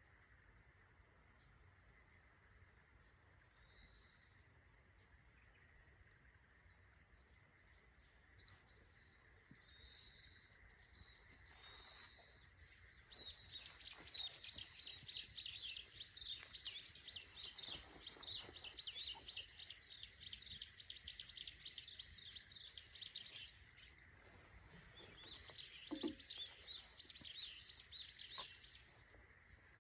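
Faint birdsong: a few short, high, rising chirps, then a long run of fast, high twittering lasting about ten seconds, and a shorter run near the end.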